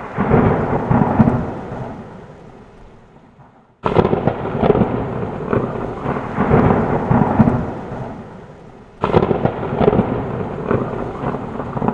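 Thunder, likely a sound effect: three claps, at the start, about four seconds in and about nine seconds in. Each breaks suddenly and rumbles away over a few seconds.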